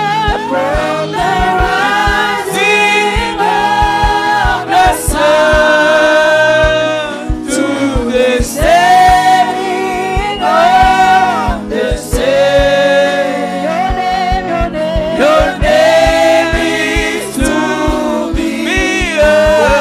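Congregational worship singing with a band: voices singing a gospel song over a steady drum beat.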